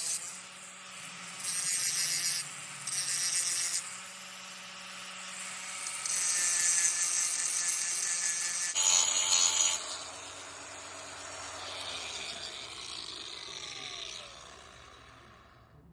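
Angle grinder with a well-worn grinding wheel grinding down a car mirror's base plate in several passes. Harsh grinding bursts about a second long, then a longer one around six seconds in, sit over the steady running of the motor. It gets quieter in the last few seconds.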